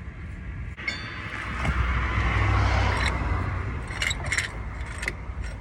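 A vehicle passing on the road, its noise swelling and fading over about two seconds over a steady low rumble. A few light metallic clinks follow in the second half.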